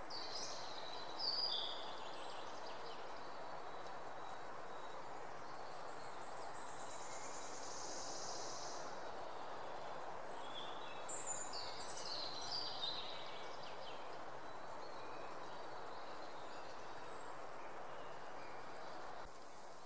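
Outdoor nature ambience: a steady, even background noise with a few short bird chirps about a second in and a cluster of them around eleven to thirteen seconds in. A high hiss runs for a couple of seconds before the second cluster, and the ambience cuts off just before the end.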